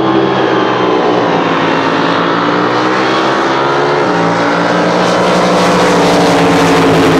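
Racing drag boat engine running steadily at low speed, well short of a full-throttle pass. Its pitch drifts down, shifts about halfway through, then climbs slowly.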